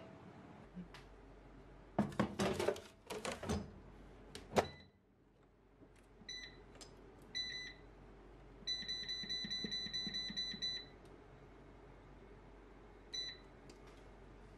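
Air fryer basket knocking and clattering as it is pushed into the fryer, then the air fryer's touch panel beeping: two single beeps, a rapid run of beeps lasting about two seconds, and one more beep near the end.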